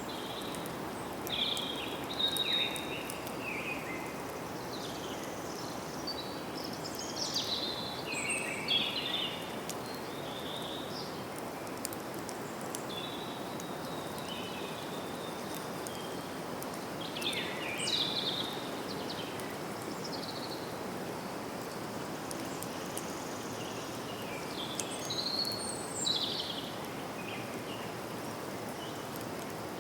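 Forest ambience: birds singing in short bursts of calls every several seconds, over a steady background hiss.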